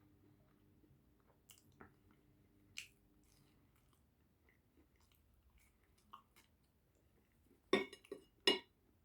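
Close-miked mouth sounds of eating pizza: soft chewing with small scattered clicks. Near the end come two much louder sharp sounds, a little under a second apart.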